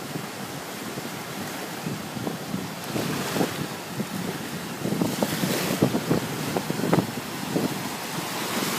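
Small waves breaking on the beach, a steady surf hiss that swells about three seconds in and again around five to six seconds, with wind buffeting the microphone in short gusty rumbles.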